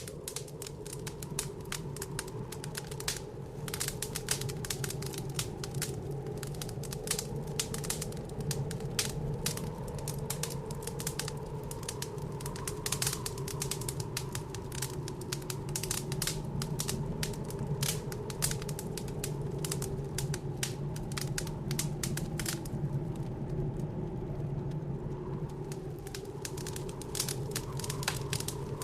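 Wood fire in a fireplace crackling, with dense, irregular pops and snaps that thin out for a few seconds near the end. Underneath runs a steady low howl of blizzard wind outside.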